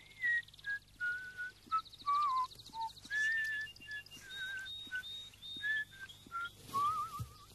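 Whistling: a run of short, pure whistled notes that jump about in pitch, with warbles and quick trills, bird-like in character.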